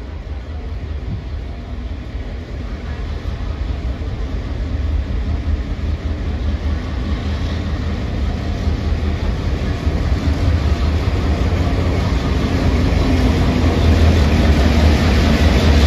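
The two-stroke V16 EMD diesel engine of heritage locomotive 42105 running under power as the train approaches and draws alongside, growing steadily louder, with a strong deep thrum.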